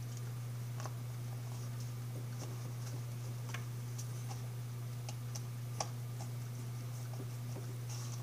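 Scattered faint plastic clicks and ticks as the small parts of a solar garden light are handled and its cover worked into place, the sharpest about six seconds in, over a steady low hum.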